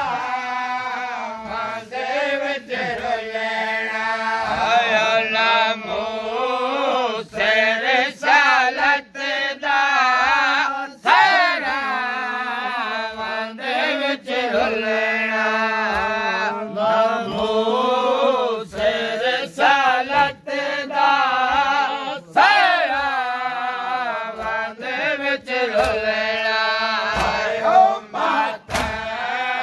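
Men chanting a noha, a Shia mourning lament, in a continuous sung melody, with sharp slaps of matam chest-beating recurring about once a second.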